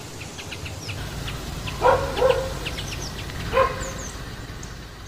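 Small birds chirping in quick, short high notes, with three louder short calls: two close together about two seconds in and one more a second and a half later.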